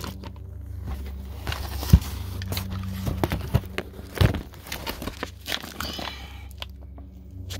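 Cardboard fireworks cakes being handled, with rustling and crinkling of packaging. Sharp knocks come about two seconds in and again about four seconds in, over a steady low hum.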